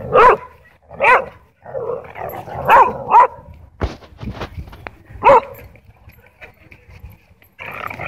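A dog barking during rough play with other dogs: five short, sharp barks, two of them close together about three seconds in, with rougher, quieter dog noises between them.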